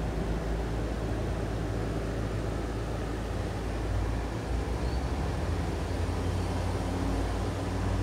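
Outdoor unit of an Emailair split-system air conditioner running: a steady low compressor hum with fan noise over it.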